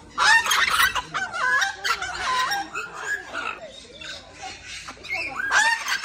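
Parrots calling over and over: loud, harsh squawks with rising and falling notes. They are loudest in the first couple of seconds, die down in the middle, then pick up again near the end.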